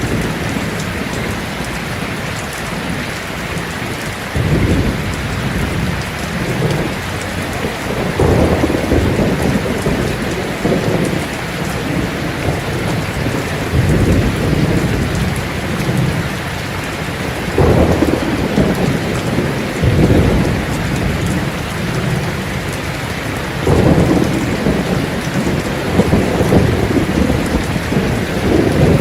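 Heavy rain falling on a tin roof in a steady hiss, with low rolls of thunder swelling and fading about half a dozen times.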